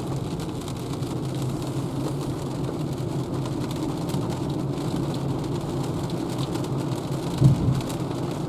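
Steady road noise inside a Renault ZOE electric car cruising on a wet road in rain, with one short thump about seven and a half seconds in.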